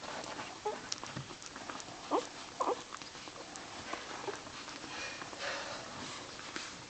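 Newborn Boxer puppies making small squeaks and whimpers, with two short squeaks about two seconds in, amid soft shuffling and patter.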